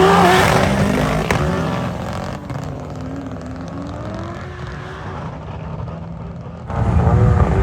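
Racing car engines at full throttle, the engine note shifting in pitch as it pulls away and fades. Near the end a sudden cut brings in another loud engine.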